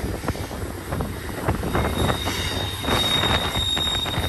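Freight train rolling past on a curve: a steady low rumble with a run of wheel clicks, and a thin, high steel-wheel squeal against the rails that sets in about two seconds in and holds steady.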